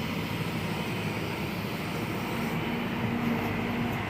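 Kobelco SK200 excavator's diesel engine running steadily.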